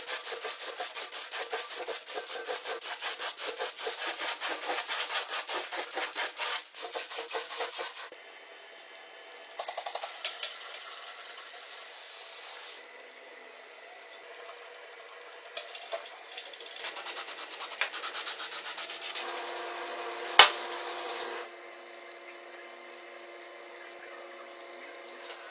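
Quick back-and-forth rubbing strokes on a hard surface, as in hand sanding or scrubbing a part. A long stretch of even strokes runs for about eight seconds, then shorter bursts follow with pauses between them, and there is one sharp click about twenty seconds in.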